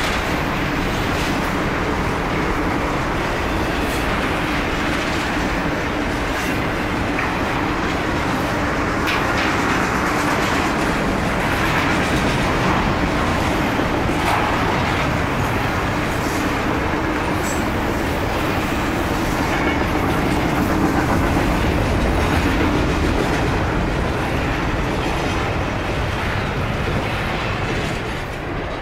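Double-stack intermodal well cars of a freight train rolling past: a steady rumble of steel wheels on rail with clicks over the rail joints, dropping off as the last car goes by near the end.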